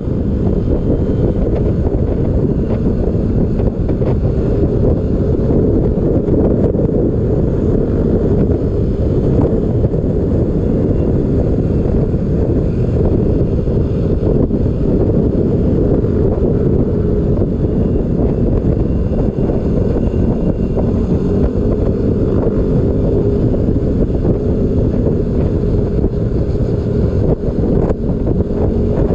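Loud, steady, low rumble of wind noise on the microphone.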